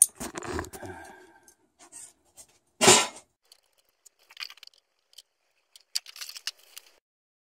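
Wrenches and small metal parts clinking and rattling as they are handled at an outboard's ignition wiring, with one loud short clatter about three seconds in.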